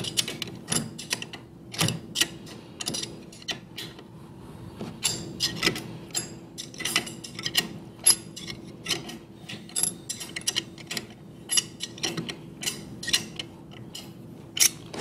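A hand wrench tightening the mounting-bracket bolts of a ball valve: runs of sharp metallic clicks, a few a second, with short pauses between strokes.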